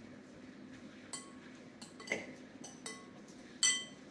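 A metal spoon clinking against a glass mixing bowl as a bass ceviche is stirred: several light clinks with a brief ring, the loudest near the end.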